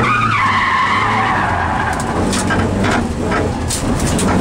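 Rally car's tyres squealing through a tight turn, the squeal sliding down in pitch over the first two seconds above the engine note, heard from inside the cabin. After that, scattered sharp ticks and knocks over the engine.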